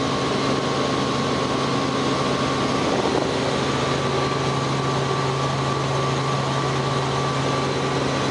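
Robinson R44 helicopter in flight, heard from inside the cabin: the steady drone of its Lycoming six-cylinder piston engine and rotors, with a steady high whine over it.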